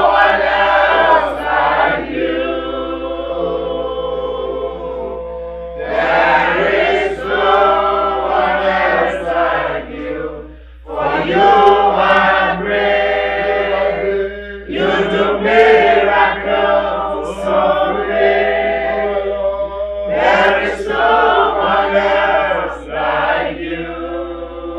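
Church worship singing: several voices sing a praise song in phrases of a few seconds, with long held notes between the phrases.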